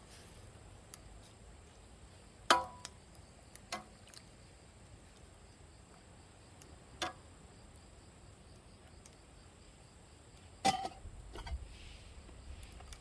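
Metal cookware clinking at a campfire: four sharp knocks, the first and last loudest, each of those two leaving a brief ring.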